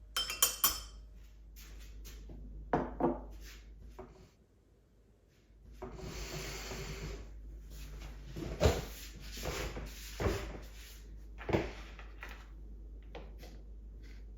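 Kitchen handling sounds at breakfast: dishes and utensils knocking and clinking in separate strokes, with a couple of seconds of even rushing noise near the middle.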